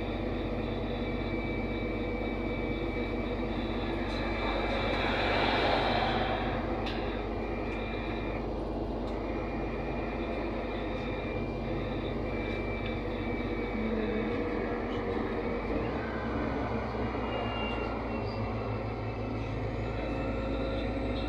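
Cabin sound of a NefAZ 5299 city bus under way: its Cummins ISBe diesel engine running steadily under road and tyre noise. A louder swell of noise comes about five seconds in and fades after a second or two.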